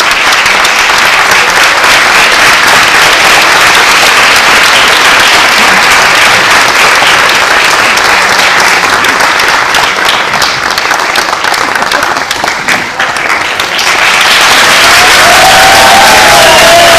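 A theatre audience applauds loudly. About ten seconds in, the clapping thins to scattered claps, then swells again, with voices calling out over it near the end.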